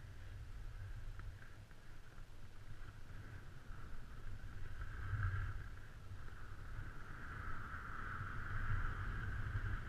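Snowboard base and edges sliding and scraping over groomed snow during a run, a steady hiss that grows louder in the second half, with a low rumble underneath.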